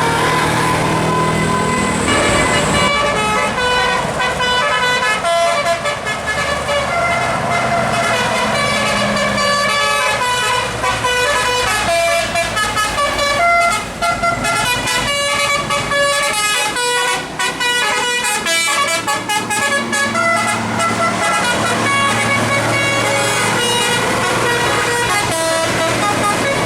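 Indonesian 'telolet' bus horn, a set of electric multi-tone horns, playing quick melodic runs of short notes over the low steady running of a bus engine.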